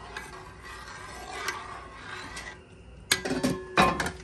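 Steel ladle scraping and stirring through milk and vermicelli in a metal pot, with a louder run of clattering about three seconds in.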